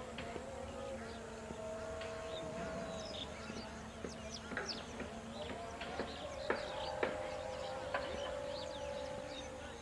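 Outdoor wetland ambience: a steady drone of a few held tones, with many short, high bird chirps scattered over it, the sharpest about six and a half and seven seconds in.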